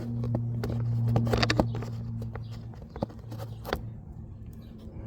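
Hands handling tools and plastic parts: rustling and a few sharp clicks, over a steady low hum.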